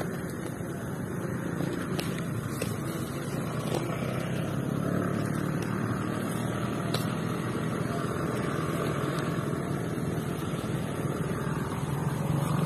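A steady low hum, like an engine running nearby, with no bang.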